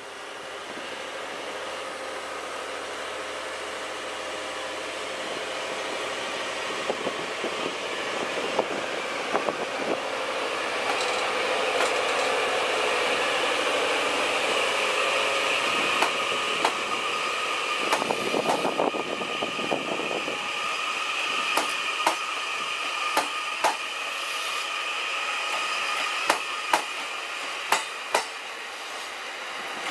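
E001 series TRAIN SUITE Shiki-shima hybrid train moving off slowly in DC mode, its diesel generator engines running steadily, loudest through the middle. From about halfway on, wheels click over rail joints, more often near the end.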